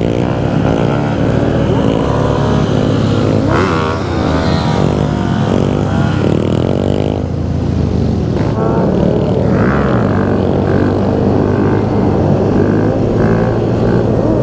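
Several motorcycles riding in a group, their engines running with pitch rising and falling as they accelerate and shift.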